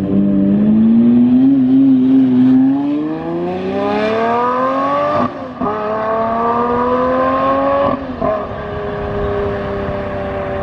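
Sports car engine accelerating hard through the gears: the pitch climbs, drops with an upshift about five seconds in, climbs again and shifts once more about eight seconds in, then holds and eases as the car pulls away.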